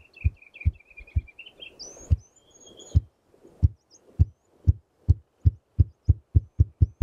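Male ruffed grouse drumming: deep, low wing-beat thumps, slow and spaced at first, then coming faster and faster as the drum builds toward its roll. This is the grouse's territorial and courtship display. Another bird sings a high warbling song over the first few seconds.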